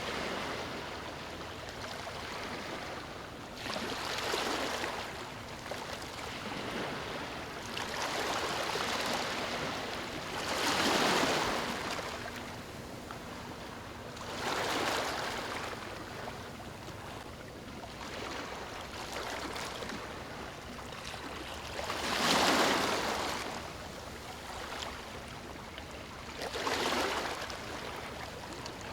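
Ocean waves breaking on the shore: six swells of surf, each rising and washing away over a second or two, over a steady rush of water.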